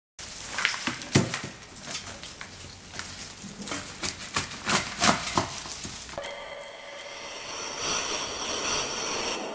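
Close rustling and crackling of rose stems and leaves being handled, an irregular run of sharp crackles. About six seconds in, a steady shimmering drone with high ringing tones comes in and slowly swells.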